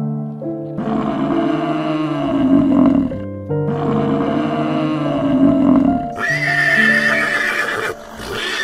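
Calm background music with animal calls laid over it: two long, rough, low calls, then a higher, held call about six seconds in.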